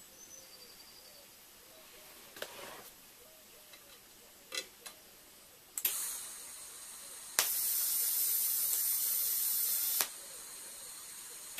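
TIG welding torch hissing steadily for about two and a half seconds in the second half, starting and stopping abruptly with a click. A shorter hiss that fades away comes just before it, and a few light clicks of handling come in the first half.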